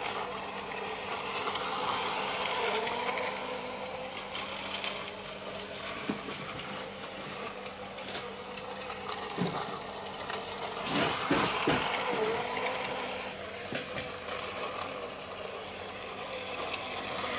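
Battery-powered toy train locomotive running on plastic track, its small motor whirring and the wheels clattering over the track. A burst of louder clicks comes about two-thirds of the way through.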